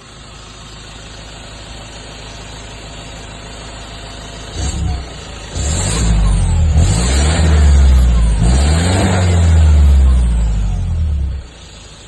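2015 Ford Ranger's 2.2-litre four-cylinder turbodiesel idling, then blipped briefly about four and a half seconds in and revved up again for about six seconds, its pitch rising and falling, before dropping back to idle near the end.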